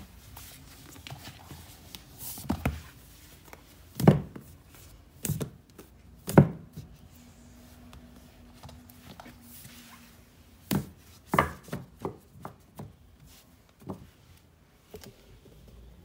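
Books being set down and stacked on a wooden cabinet shelf: a series of knocks and thuds, the loudest about four and six seconds in, with more in quick succession around eleven seconds in.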